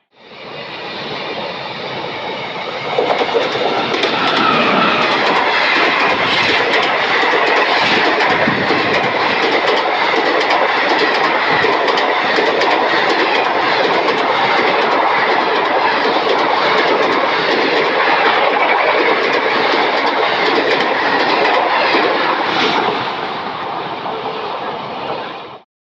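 Passenger train running past at speed close by: a dense rumble with rapid clickety-clack of wheels over the rail joints. It builds to full loudness about three seconds in, holds steady, then cuts off suddenly near the end.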